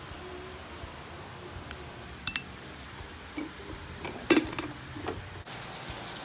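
A few sharp clinks of mugs and a spoon while coffee is being made, the loudest about four seconds in. Near the end a steady hiss of rain comes in.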